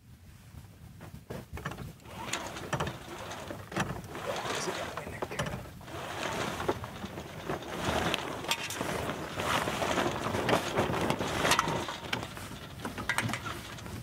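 A sailboat's sail being hoisted by hand: the halyard rasps through its blocks in repeated pulls while the loose sail flaps, the noise building about two seconds in and staying uneven.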